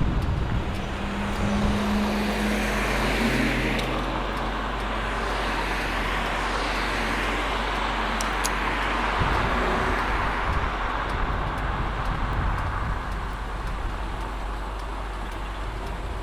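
Ford Shelby GT500's V8 running at a steady cruise over tyre and road noise, with a low engine drone in the first few seconds that then fades.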